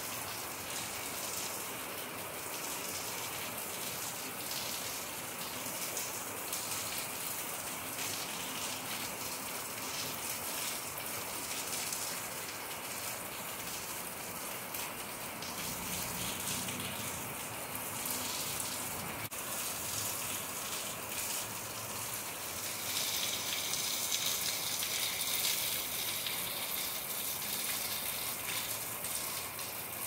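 Steady rain falling, with a heavier spell for a few seconds about three-quarters of the way through.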